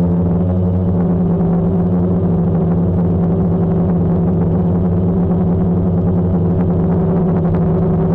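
Multirotor camera drone's electric motors and propellers humming steadily while it hovers and glides slowly.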